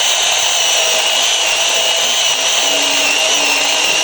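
Small battery-powered cutting tool running steadily with a constant high-pitched motor whine.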